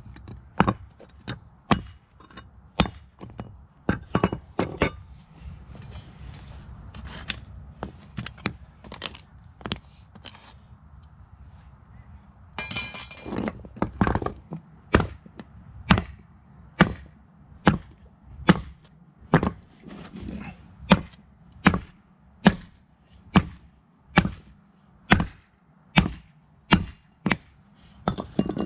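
Handled metal ingot mould banged face-down against a concrete paver to knock out a freshly cast aluminium ingot: a run of sharp metallic knocks. They are scattered at first, then settle into a steady beat a little more than once a second from about halfway through.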